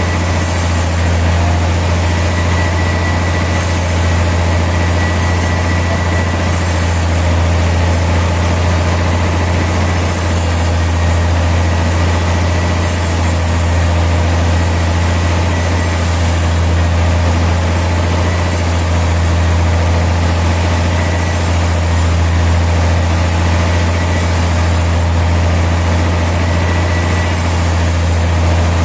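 Sawmill machinery running steadily: a loud, constant low hum with a hiss above it and no change in load throughout.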